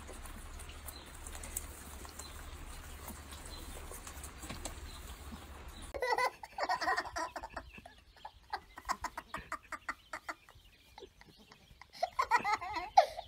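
Guinea pigs munching vegetables: faint crunching over a steady hiss. About six seconds in it changes to louder short calls from a goat kid and a toddler's laughter, with giggling near the end.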